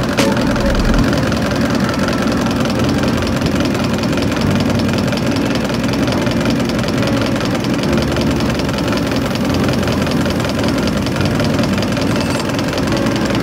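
Denso rotary diesel injection pump being driven on a calibration test bench: a steady mechanical hum with a fast, even ticking.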